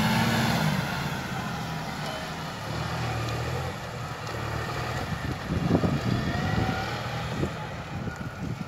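Farm tractor engine running as the tractor pulls away with its front snow blade, its hum fading as it moves off. Wind gusts on the microphone in the second half.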